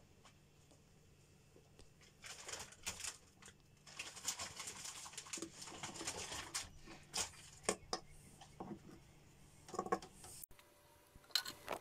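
A kitchen knife and frozen strawberries being handled on a plastic cutting board: scattered light taps and short scrapes, busiest in the middle, with a faint steady hum underneath.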